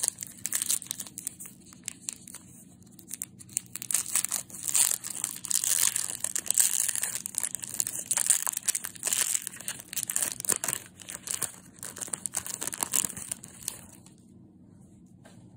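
Foil wrapper of a Panini baseball card pack being torn open and crinkled by hand, a dense crackling that stops near the end.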